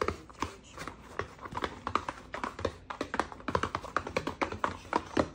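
A quick, irregular series of sharp taps and clicks, several a second.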